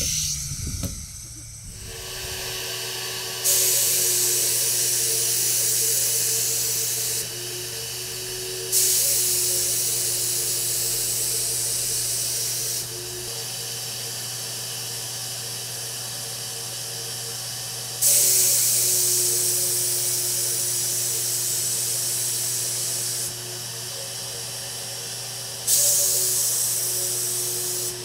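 HVLP paint sprayer: the turbine hums steadily while the spray gun hisses in four passes of several seconds each, each starting suddenly as the trigger is pulled, spraying paint onto cabinet face frames.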